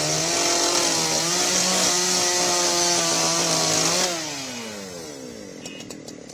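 Chainsaw running at full throttle, cutting through a fallen tree. About four seconds in the cut ends, and the engine winds down with a falling pitch toward idle.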